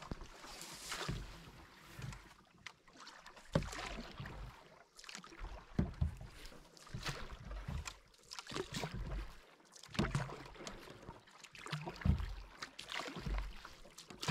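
Canoe paddle strokes in calm creek water: a splash and swish of water with each stroke, recurring about every two seconds.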